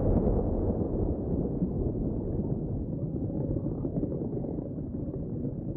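Low rumbling underwater-ambience sound effect, a dull noise with no clear tone that slowly fades.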